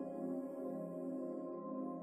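Calm ambient new-age background music of long, steady held tones.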